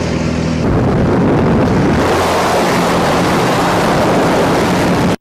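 Jump plane's engine droning in the cabin, overlaid by loud wind rushing through the open jump door, which swells about a second in as the tandem pair moves into the doorway. The sound cuts off suddenly at the end.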